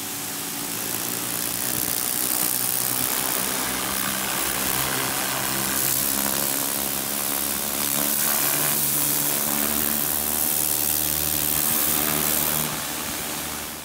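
Pressure washer running: a steady motor hum under the hiss of the water jet blasting rust and dirt off a steel trailer frame. The spray hiss drops away near the end.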